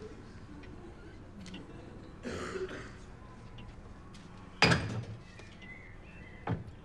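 Scattered small clicks and knocks of objects being handled, with one loud sharp knock about halfway through and a smaller one about two seconds later.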